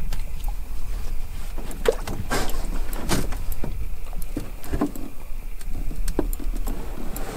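Handling noises in a fishing boat: irregular clicks, knocks and a few short scrapes over a steady low rumble.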